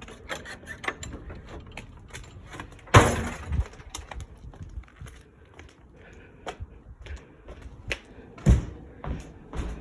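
Scattered clicks and knocks, with a loud thud about three seconds in and another near the end.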